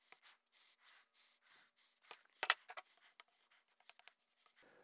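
Faint scratchy strokes of wood glue being applied to a pine strip, first from a glue bottle's applicator drawn along the edge and then with a bristle brush. A sharper tap or knock comes about halfway through.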